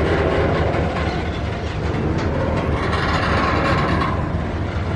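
Loaded double-stack container well cars of a freight train rolling past close by: a steady rumble of steel wheels on rails, with a few clicks from the wheels over the track.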